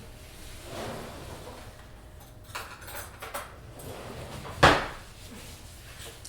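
Kitchen clatter: a drawer and metal forks being handled, with a few light clinks and then one sharp knock about two-thirds of the way through.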